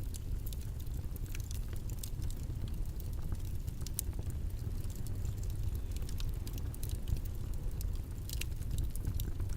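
Steady low rumbling background noise, with faint scattered clicks and ticks over it.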